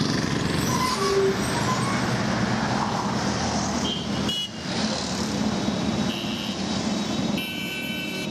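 Road traffic: vehicle engines and tyre noise running steadily, with a few short horn toots. The sound changes abruptly about four and a half seconds in.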